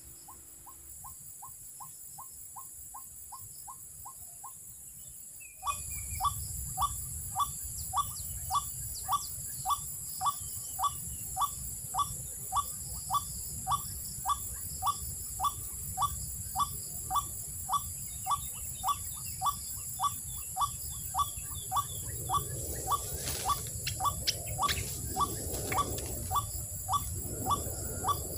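White-breasted waterhen call: a single short note, falling slightly in pitch, repeated steadily about twice a second. It gets louder about five seconds in. Insects shrill steadily in the background, and there is some rustling near the end.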